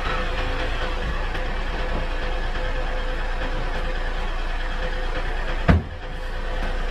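Steady drone of a vehicle under way, engine and road noise, with one sharp thump a little under six seconds in.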